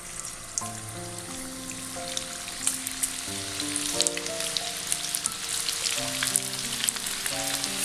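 Marinated chicken strips deep-frying in hot sunflower oil, sizzling with sharp crackles that grow louder and denser as more pieces go into the oil.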